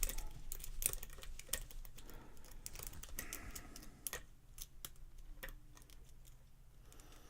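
Lock pick and tension wrench working a Cisa padlock's pin tumblers: small, irregular metallic clicks and scrapes as pins are lifted one at a time, thinning out after about four seconds.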